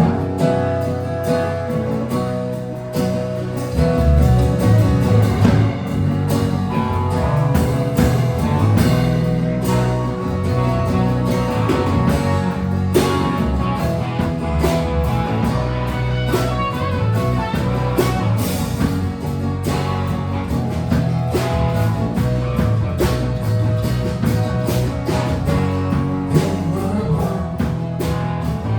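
Live band playing an original song: guitar over a steady beat, with the low end of the bass filling in about four seconds in.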